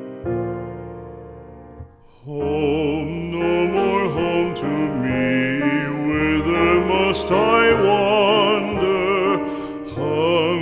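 Music: piano notes fading away, then from about two seconds in a singing voice with wide vibrato over piano and other accompaniment.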